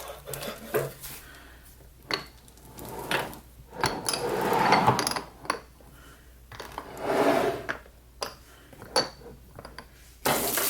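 Small candle containers and their packaging being handled and moved on a desk: scattered light clicks and knocks, with two longer handling sounds about four and seven seconds in.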